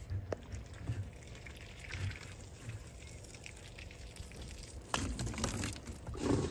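Water pouring into a three-chamber septic tank as it is filled, louder from about five seconds in.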